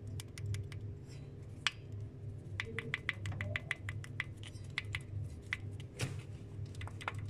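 Light, sharp clicks and taps of hand tools on the open valve gear of a Mitsubishi 4D56 diesel engine during valve-clearance adjustment, coming in a quick even run of about four or five a second through the middle, over a steady low hum.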